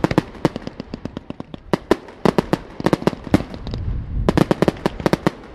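Fireworks going off: a rapid, irregular run of sharp bangs and pops from bursting shells and comets, over a low rumble, with dense clusters about two seconds in and again about four to five seconds in.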